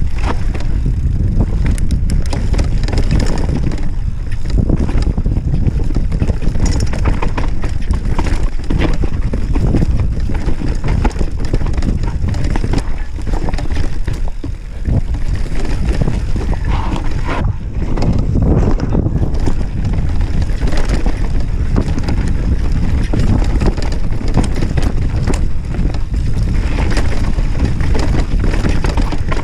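Mountain bike rolling fast down a dirt forest trail: wind buffeting the chest-mounted camera's microphone, tyres on dirt and the bike rattling and knocking over bumps, with a brief lull about fifteen seconds in.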